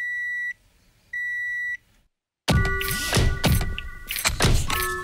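A Toyota HiAce's electronic beep sounds twice, each a steady high tone about half a second long. After a brief silence a beat kicks in about two and a half seconds in, with heavy drum hits and a synth melody built from sampled HiAce sounds.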